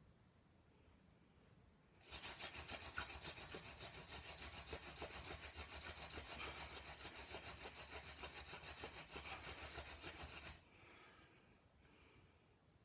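Hand-drill friction fire: palms spinning a burdock spindle back and forth, its tip grinding into a willow hearth board. The result is a fast, rhythmic dry scraping that starts abruptly about two seconds in and stops suddenly about eight seconds later.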